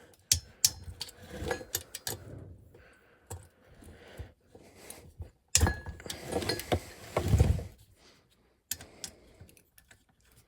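Metal tool work on a lawn mower engine: a screwdriver with an extension clicking and clinking on the crankcase bolts as they are loosened one by one. Irregular small metal clicks throughout, with two heavier knocks about five and a half and seven seconds in.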